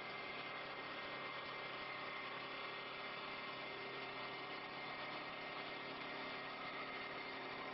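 CNC wood lathe running steadily, a continuous machine hum with a few steady whining tones.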